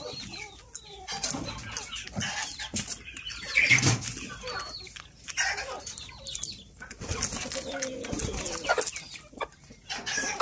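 Young chickens clucking while they peck dried corn kernels from an open hand, with many short sharp pecking clicks and a louder burst about four seconds in.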